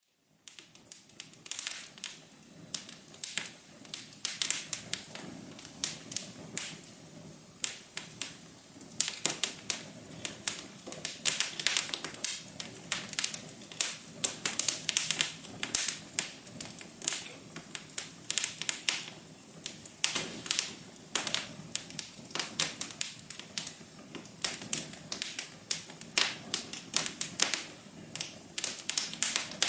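Wood fire crackling in a fireplace: irregular sharp pops and snaps, several a second, over a soft low hum of the burning fire. It fades in over the first half second.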